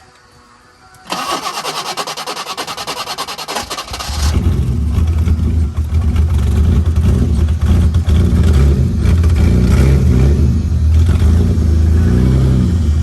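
BMW E30 cold start: the starter motor cranks rapidly for about three seconds, then the engine catches and keeps running, with a brief rise and fall in pitch near the end.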